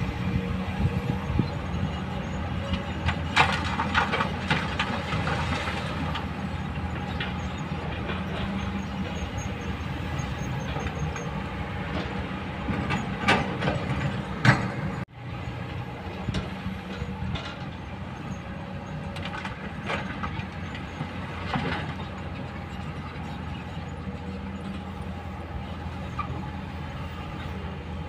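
Kobelco hydraulic excavator's diesel engine running steadily under load, with clusters of clattering and scraping as the steel bucket digs into river stones, a few seconds in, around halfway and again later.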